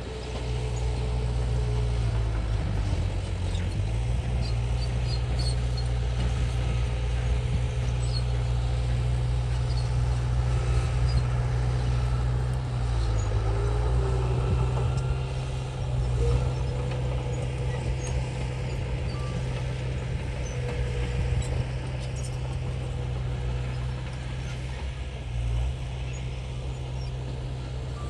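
Heavy diesel engine of earthmoving machinery running steadily under work, its low note shifting briefly a few times.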